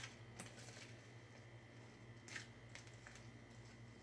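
Faint spoon scraping and clicking against a plastic bowl while folding blueberries into a thick cream cheese filling, a few soft clicks with the clearest a little past halfway, over a steady low hum.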